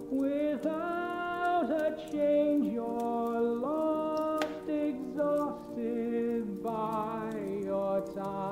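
A slow song playing, a line of long held notes without clear words, with the treble cut off so it sounds muffled like an old recording. Faint scattered clicks run through it.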